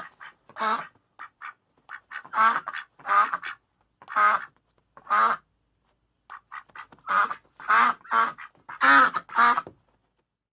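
Duck quacking: a run of short, nasal quacks in irregular bursts, some faint and clipped, the loudest ones in a cluster near the end.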